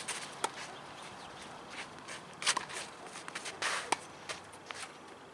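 Tennis ball struck with rackets on a clay court, heard from a distance as a few sharp pops as the point is served and played, with shoes scuffing and sliding on the clay between them.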